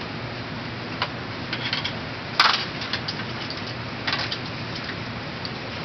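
Steady background hiss with a handful of short sharp clicks and cracks, the loudest a single crack about two and a half seconds in.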